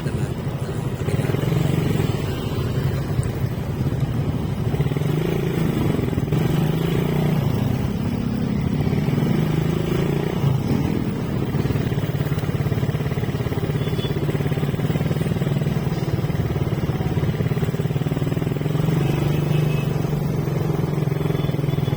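Motorcycle engine running steadily while riding, its pitch wavering a little as the speed changes.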